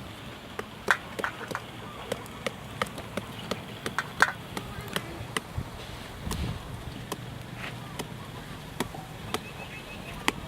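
Knife chopping on a cutting board in an irregular run of sharp knocks, about two or three a second.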